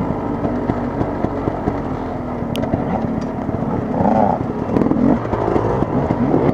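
KTM Freeride 250 dirt bike engine running at low trail speed, its revs rising and falling in short bursts of throttle, with scattered knocks and rattles from the bike over rough ground.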